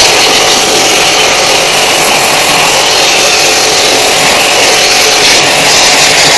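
A portable high-pressure washer running without a break: its pump motor hums steadily under the loud hiss of the water jet spraying into an air conditioner's evaporator coil fins.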